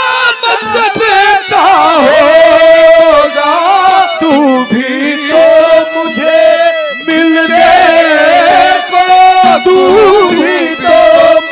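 Live Haryanvi ragni folk music played loud: a bending, ornamented melody line over steady harmonium tones.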